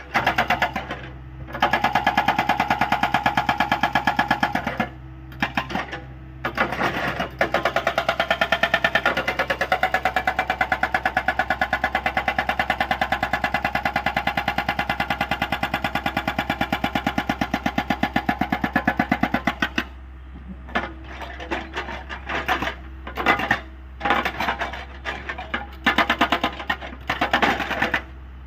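Hydraulic rock breaker on a Hyundai 85A excavator hammering in rapid, ringing blows. It stops briefly about a second in and again around six seconds in, and after about twenty seconds it runs only in short bursts.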